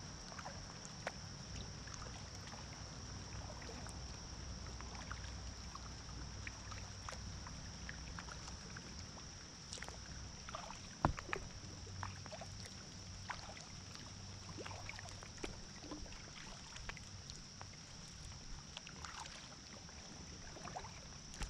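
Inflatable kayak drifting on a creek in light rain: scattered small drips and taps of water, with one sharper knock about eleven seconds in, over a steady low rumble and a thin steady high tone.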